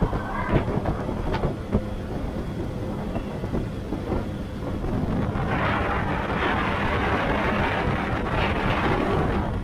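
Can-Am Maverick R side-by-side driving on a rough trail: the engine runs steadily, with a few sharp knocks and rattles in the first couple of seconds. A louder rushing noise swells from about halfway through and runs nearly to the end.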